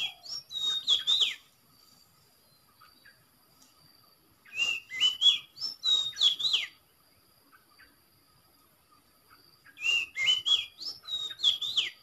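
Oriental magpie-robin (kacer) song played from an MP3 lure recording: the same roughly two-second phrase of whistled, sliding notes repeats three times, about every five seconds.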